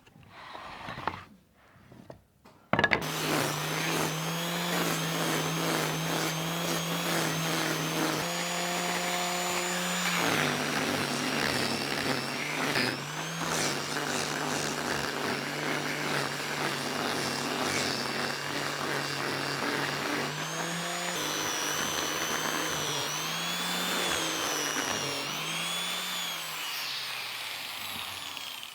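Electric power tool starting about three seconds in and running steadily, its motor pitch dipping and recovering several times as it bites into wood.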